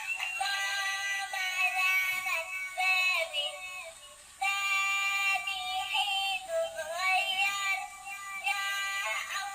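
A musical toy's small speaker playing a synthesized sung children's tune, thin and tinny with no bass, with a short pause about four seconds in.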